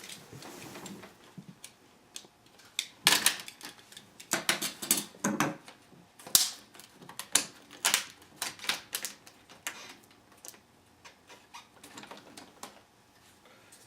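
Black plastic screen bezel of a laptop being pried off with an X-Acto knife: irregular runs of sharp clicks and snaps, thickest in the middle and thinning out near the end.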